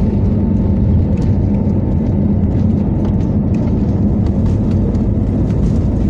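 Steady low rumble and drone of a moving vehicle heard from inside, running evenly with no change in pitch.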